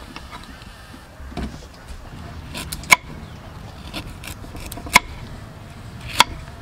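Kitchen knife cutting a root on a wooden chopping board, with sharp knocks of the blade hitting the board about 3, 5 and 6 seconds in, and lighter scraping and tapping between them.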